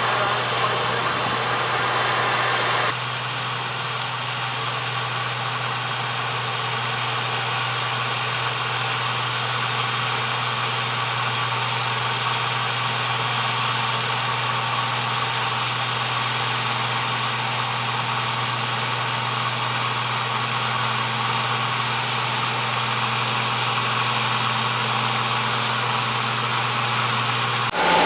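Allis-Chalmers Gleaner N6 combine harvester, with its 220 hp Allis-Chalmers 426 engine, running steadily while harvesting corn: a constant low hum with a machinery rush above it. The sound shifts and drops slightly about three seconds in.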